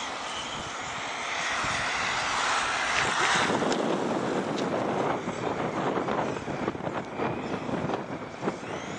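Tamiya Gravel Hound radio-controlled car's electric motor whining as the car drives around the asphalt track, getting louder about three seconds in.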